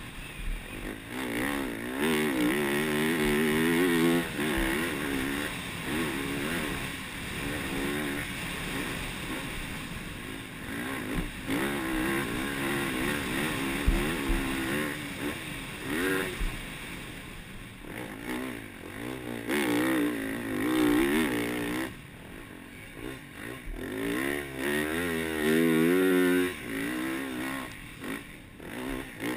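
Yamaha YZ450F four-stroke single-cylinder dirt bike engine being ridden hard on a sandy motocross track, the throttle opened and closed over and over so the pitch keeps rising and falling, with short drops where the rider backs off around 22 and 28 seconds in.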